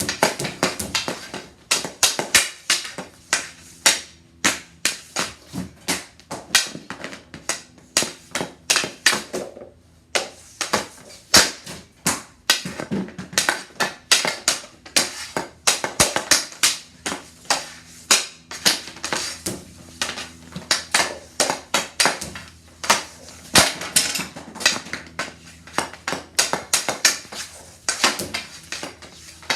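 Hockey stick and puck clacking during shooting practice on synthetic ice tiles: a rapid string of sharp clacks and slaps, several a second, as the stick strikes pucks and pucks rebound off the passer.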